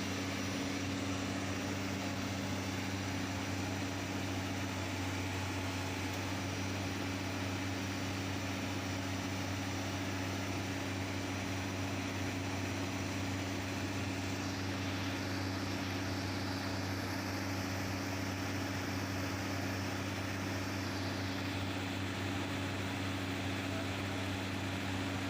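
Hydraulic excavator diesel engines running at a steady speed: a constant low hum with no change in pitch or level.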